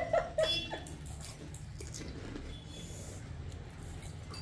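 Panipuri being eaten: faint crunching and chewing of the crisp puri shells over a steady low background hum, with a brief vocal sound just at the start.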